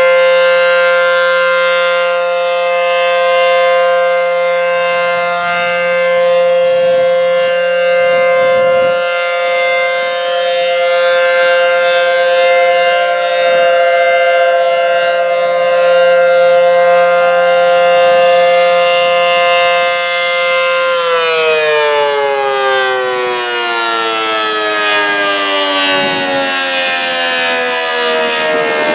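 ACA Howler outdoor warning siren, driven by a three-phase motor, sounding a steady alert tone at full speed. About three-quarters of the way through it shuts off and winds down, its pitch falling steadily.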